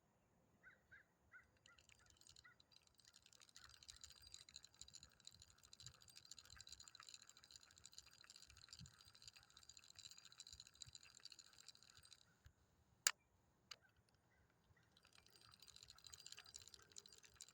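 Fishing reel being cranked, a fast ticking whir as the line is wound in. It stops after about ten seconds, there are two sharp clicks, and the cranking starts again near the end. The line is coming back fouled with pond grass.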